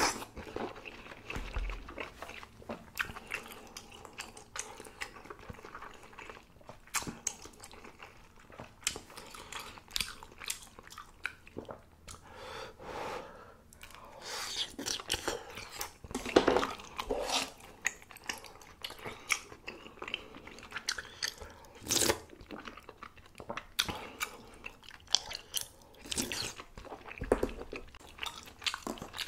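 A person eating spicy mala tang close to the microphone: chewing and biting, with many short, irregular clicks and mouth noises.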